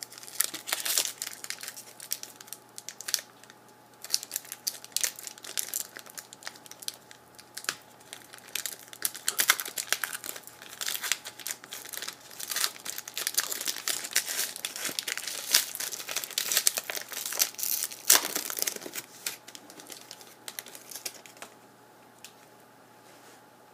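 Hockey card packaging crinkling and crackling as it is handled and opened, in a long run of irregular sharp crackles that dies down near the end.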